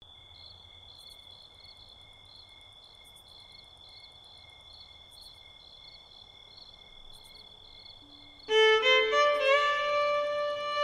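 A faint, steady high-pitched tone with soft pulsing chirps, two or three a second. About eight and a half seconds in, a loud solo fiddle tune enters with sliding notes: the show's opening theme music.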